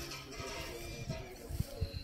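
Background music with steady held notes, and a couple of sharp low thumps near the end.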